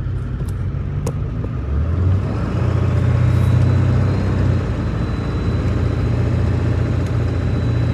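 Engine and road noise of a vehicle being driven: a steady low hum that grows louder about two seconds in, with two short clicks in the first second or so.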